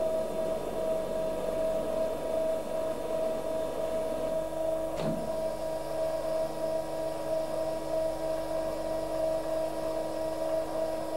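Hydraulic power unit running: a steady electric motor and pump hum with a high whine, and a short click about five seconds in.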